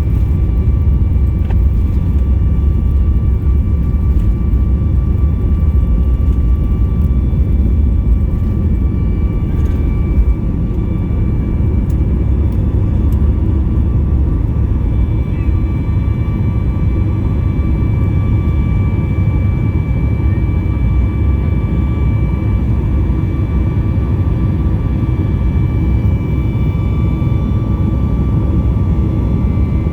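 Jet airliner engines running steadily: a loud low rumble with a steady high whine on top.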